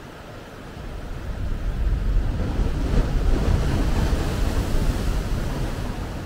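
Ocean wave breaking close to the shore and washing up the sand as a rush of surf. It swells about a second in, is loudest through the middle, and eases off near the end.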